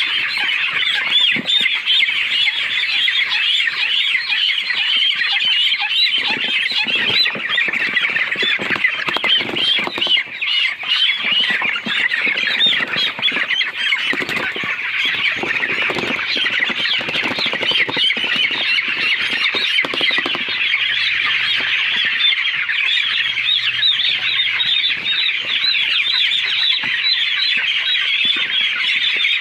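A large flock of poultry calling all at once: a dense, continuous chatter of many overlapping high-pitched calls, with some lower knocks and noises mixed in through the middle.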